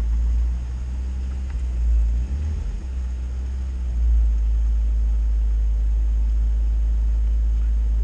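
UAZ Patriot engine idling at working temperature, heard from inside the cab as a steady low rumble; the radiator fan has not yet switched on.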